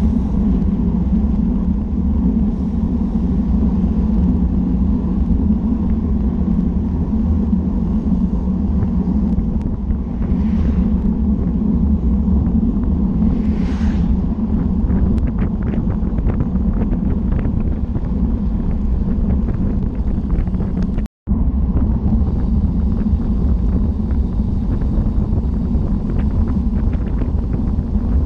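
Wind buffeting the microphone of a bike-mounted camera, with a steady low rumble of road-bike tyres rolling on asphalt at speed. The sound cuts out completely for an instant about three-quarters of the way through.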